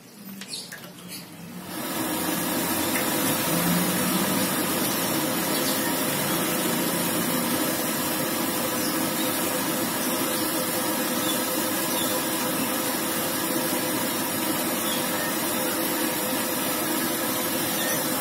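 Gas stove burner lit under a wok of cooking oil, coming on about two seconds in and then running with a steady rushing hiss as the oil heats.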